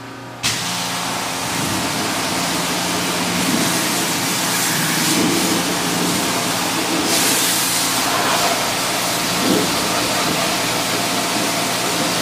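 Pressure washer switching on about half a second in and spraying steadily: a hiss of the water jet over the hum of its pump motor, rinsing degreaser off heavy oily grime.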